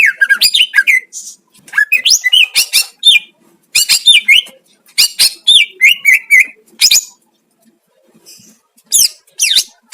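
Cucak ijo (green leafbird) singing: loud, varied whistled phrases of fast up-and-down slurred notes, with a pause of about two seconds near the end before a last phrase. A 'master' song of the kind played to pet cucak ijo to provoke them into singing.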